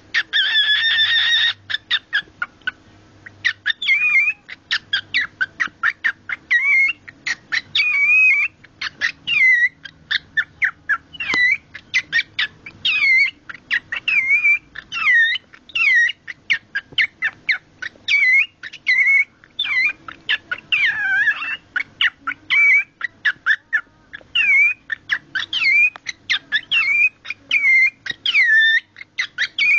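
A cockatiel makes its strange noise when shown cloth, here a sock. It opens with a harsh buzzy call of about two seconds, then keeps up a long run of short clicks and quick, hooked chirps, several a second.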